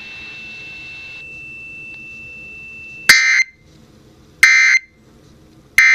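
Emergency Alert System end-of-message code over FM radio: three short, loud digital data bursts about a second apart, signalling that the alert is over. They come after about three seconds of faint hiss with a thin steady tone.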